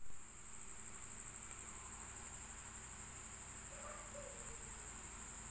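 Steady high-pitched insect trill, unbroken and lightly pulsing, with a brief louder knock at the very start.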